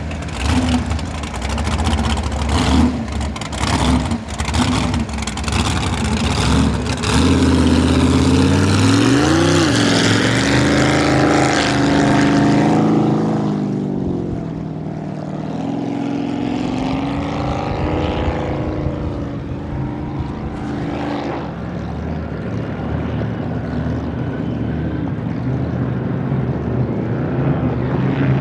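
A v-drive boat engine running: its pitch swells and bends twice, around seven and sixteen seconds in, then settles to a steadier, lower note.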